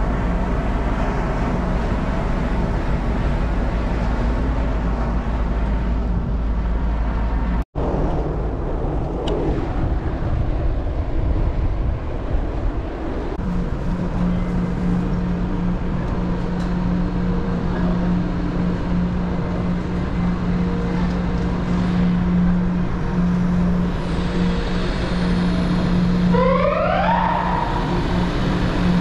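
Steady engine rumble with a low hum that sets in about halfway through, and a short rising whine near the end.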